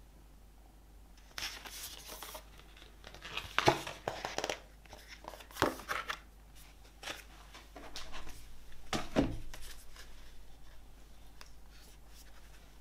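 Hands handling an album's packaging and paper inserts: irregular bursts of rustling and crinkling with a few sharp clicks, fading to light ticks in the last few seconds.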